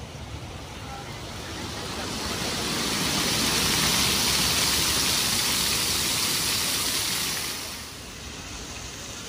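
Splashing water from plaza fountain jets, growing louder in the first few seconds, loudest for several seconds, then dropping away suddenly near eight seconds in.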